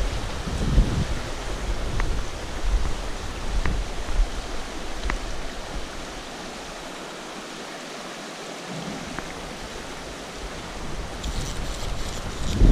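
The Garona, a mountain river, rushing steadily over its bed. There are a few low bumps on the microphone in the first second and again near the end, and a light rustling just before the end.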